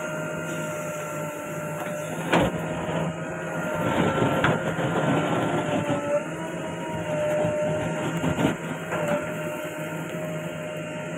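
JCB 3DX backhoe loader's diesel engine running steadily with a constant whine. There is a sharp clank about two seconds in, a louder rush of noise from about four to six seconds, and another knock a little past eight seconds.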